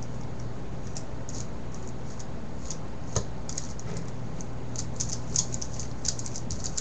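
Plastic pieces of a Rubik's 4x4 cube being handled and turned, making light scattered clicks with one sharper clack about three seconds in and a quicker run of clicks near the end.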